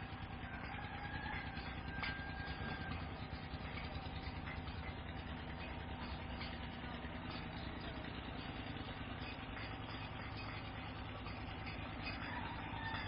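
Steady low mechanical hum like an idling motor, with a faint high whine held throughout.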